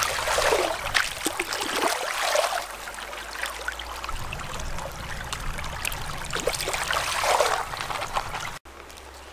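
Shallow stream water splashing and sloshing as raw chicken feet are rubbed and turned by hand in a bamboo basket held in the current, with many small splashes in uneven surges. It cuts off abruptly near the end.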